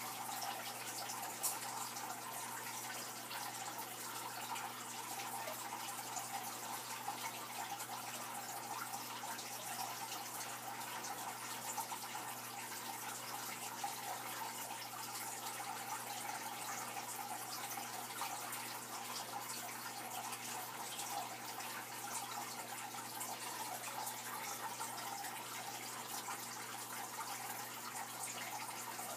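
Aquarium water circulating at the surface: a steady trickling, splashing wash with small scattered drips, over a faint low electrical hum.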